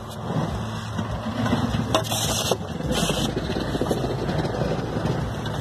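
Snow shovel scraping dry, powdery snow off a wooden deck railing, with a sharp knock about two seconds in and a hissy scrape just after, over a steady low rumble.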